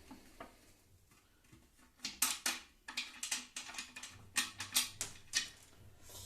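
Irregular clicks and rattles of router table parts being handled and fitted during assembly. The first two seconds are quiet, then a quick run of sharp clicks and clatter follows for a few seconds.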